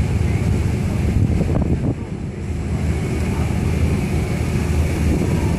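Steady low rumble of a boat engine, with wind buffeting the microphone and dipping briefly about two seconds in.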